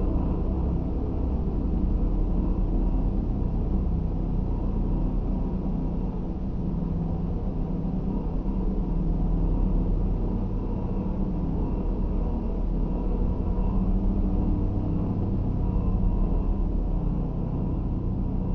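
Hovering UFO sound effect: a steady low hum with several held tones, gently swelling and easing.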